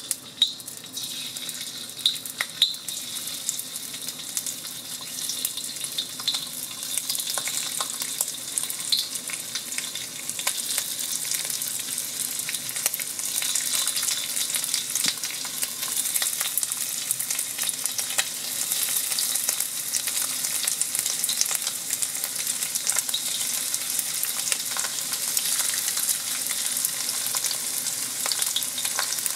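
Marinated, cornflour-coated chicken slices shallow-frying in hot oil in a wok, a steady crackling sizzle. A few sharp spits and clicks come in the first seconds as pieces go into the oil, and the sizzle grows louder as more pieces are added.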